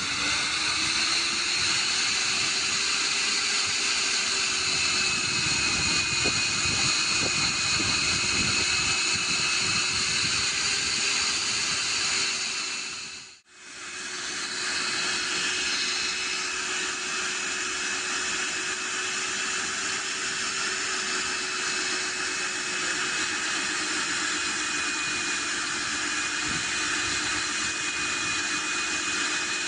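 Diamond core cutting machine running steadily, its motor giving a loud, even whine with a hiss as it bores into concrete. The sound drops away sharply about halfway through and returns at once.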